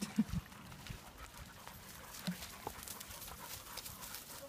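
Airedale terriers moving about off-leash: two short, low dog sounds just after the start and another about two seconds later, over faint scuffling.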